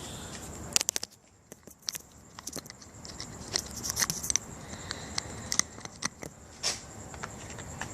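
Scattered light clicks and clinks of metal hand tools, a socket being swapped on a ratchet while looking for the right size.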